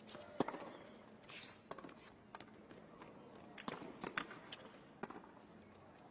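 Tennis rally on a hard court: sharp racket strikes on the ball and ball bounces every second or so, with players' footsteps on the court. The loudest strike comes about half a second in.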